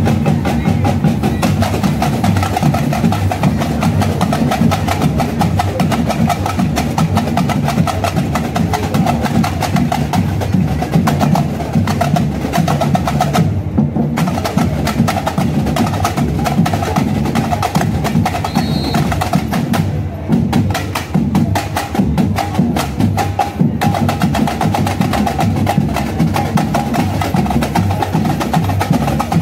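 Batucada drum corps playing a loud, driving samba beat on large bass drums (surdos) and snare drums, many drummers together in a dense, fast rhythm.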